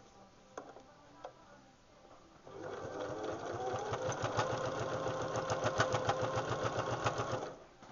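Pfaff Hobby-series sewing machine stitching through several layers of denim. After a couple of light clicks, the machine starts about two and a half seconds in, runs for about five seconds with a rapid, even rhythm of needle strokes, and stops suddenly near the end.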